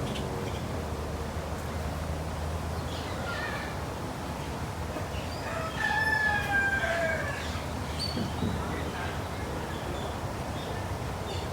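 A bird calling: one long, slightly falling call about six seconds in, with fainter short calls before and after it, over a steady background hum.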